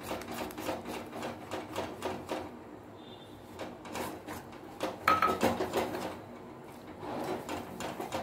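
Spatula scraping and stirring butter and flour around a metal kadai in quick, even strokes, about four a second, to keep the roux from lumping, with a short lull about three seconds in.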